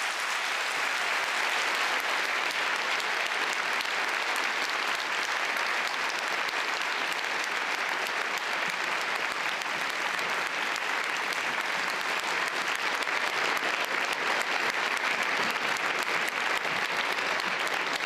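A large lecture-hall audience applauding steadily: sustained clapping with no letup.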